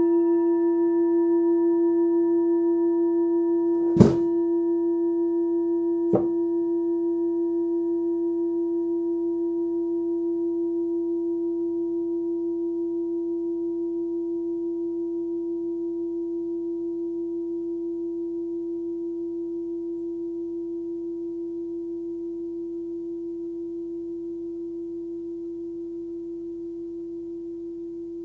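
A hand-forged singing bowl ringing on after being struck: one steady tone with a few faint overtones, slowly dying away. A light knock about four seconds in and a fainter one about two seconds later.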